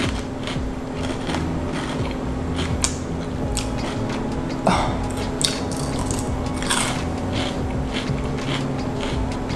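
Close-up crunching and chewing of crisp batter-fried squash blossoms (zucchini flowers), a run of crackly bites with louder crunches about five and seven seconds in.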